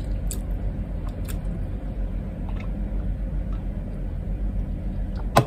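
A steady low background hum with a few faint clicks, and no speech.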